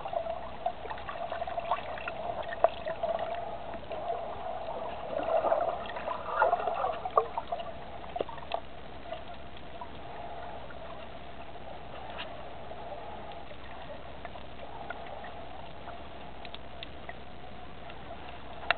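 Muffled underwater sound of a snorkeler swimming, recorded with the camera underwater: a steady hum with scattered small clicks, and a louder spell of bubbling and gurgling about five to seven seconds in.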